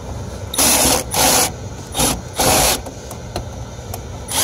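A series of short rasping scrapes, each about half a second long, over the steady low hum of a running rooftop gas-heat unit.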